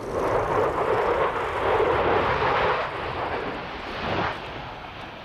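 Jet noise from a Dassault Rafale C's two Snecma M88 turbofan engines as it flies past, a loud rushing sound that fades after about three seconds.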